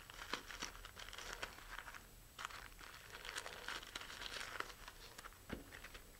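Parachute canopy fabric and shroud lines rustling and crinkling as they are handled and unbundled, in a run of short crackles with a brief lull about two seconds in.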